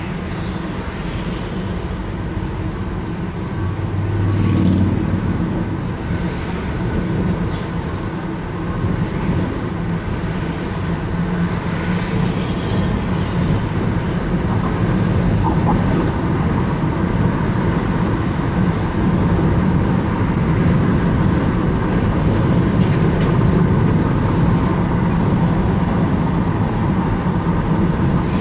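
Car on the move: a steady rumble of tyre, road and engine noise as heard on the ride, with a brief louder low drone about four seconds in.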